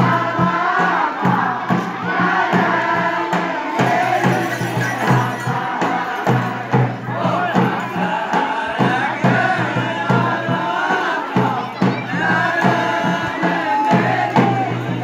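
A crowd of voices singing a traditional Kumaoni jhoda folk song together, over a steady rhythmic beat.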